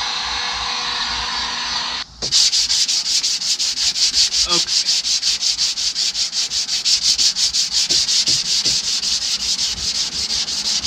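A steady whirring tool noise cuts off about two seconds in. Then 80-grit sandpaper rasps on the car door's painted steel in fast, even back-and-forth strokes, about six a second: hand block-sanding to level a dent.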